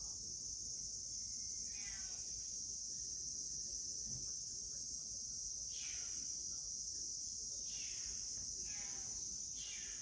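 Steady, high-pitched insect chorus, with a few short falling calls from some animal cutting through it.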